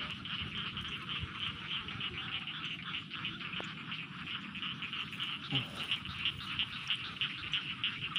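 Frogs calling in a steady chorus of rapid, evenly repeating pulses.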